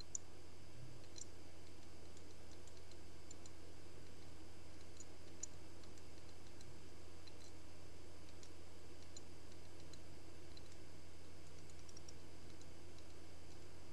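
Soft, irregular clicks of a Ledger Nano S hardware wallet's two buttons being pressed to enter its PIN, over a steady low hum of room noise.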